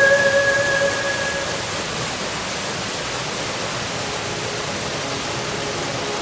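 Steady rush of a waterfall, an even hiss with no distinct events. Sustained tones of background music fade out about a second and a half in.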